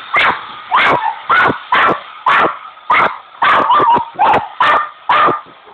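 Dog barking over and over at a hairdryer, about two barks a second, stopping shortly before the end.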